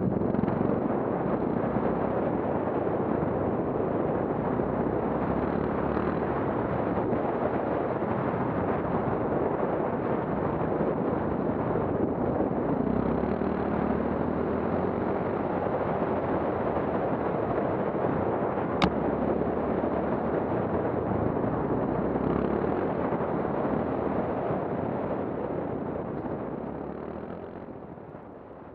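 Motorcycle riding along a gravel forest track, heard from a bike-mounted camera: a steady rumble of wind buffeting, engine and tyres on gravel. A single sharp click comes about two-thirds of the way through, and the sound fades down near the end.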